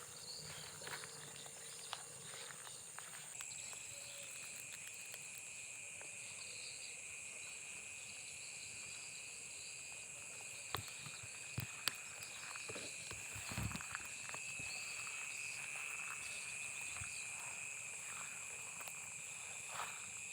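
Insects trilling steadily at a high pitch, joined about three seconds in by a second, lower-pitched trill that carries on. There are a few short knocks near the middle.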